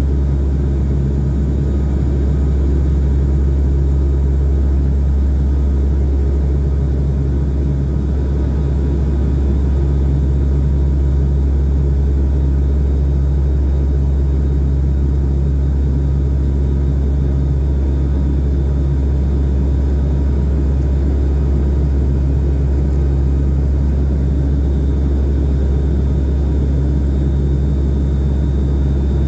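Turboprop airliner's engines and propellers droning steadily, heard from inside the passenger cabin during the climb: a loud, even low hum with a steady tone above it.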